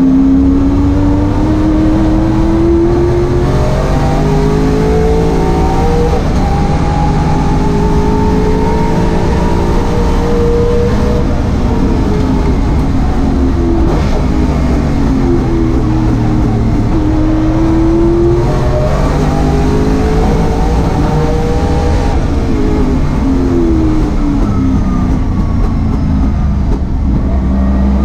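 Holden Commodore race car's engine at full race pace, heard from inside the cabin. Its pitch climbs under acceleration, drops back at the gear changes and falls away under braking, several times over.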